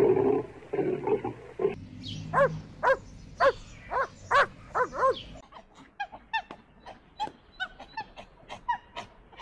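An animal calling: a rough, low sound in the first second and a half, then a quick series of short, pitched yelping calls, about two a second, that grow fainter and shorter in the second half.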